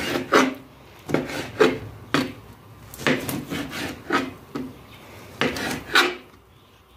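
Kitchen knife slicing raw offal on a plastic cutting board: a run of short rasping cutting strokes, roughly one a second and irregularly spaced.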